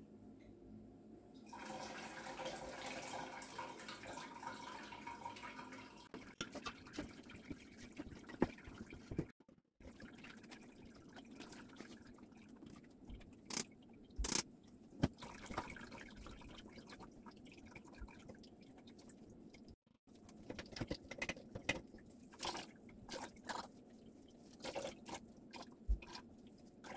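Turmeric dye liquid pouring and trickling through a sieve and straining cloth into a pot for a few seconds, starting about a second and a half in, followed by dripping and scattered light clinks and taps of the straining gear being handled.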